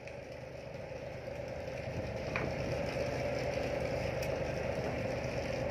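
Sand barge's diesel engine running steadily, a low even hum that grows louder over the first few seconds, with a faint click about two and a half seconds in.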